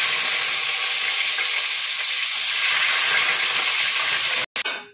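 Garlic sizzling loudly in hot oil in a steel kadhai as it is stirred with a ladle, the first step of tempering a vegetable curry. The steady sizzle cuts off abruptly near the end.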